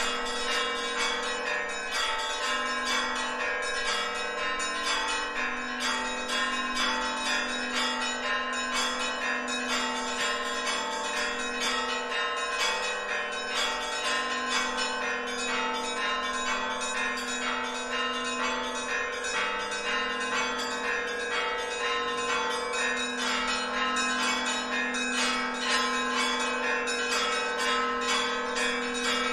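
Church bells ringing continuously, a dense run of quick strikes over a lingering hum of overlapping tones.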